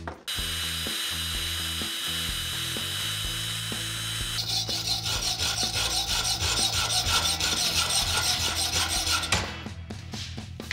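Hacksaw cutting metal in repeated back-and-forth strokes, sawing the head off a machine screw clamped in a bench vise. The sound changes about four seconds in and stops about a second before the end.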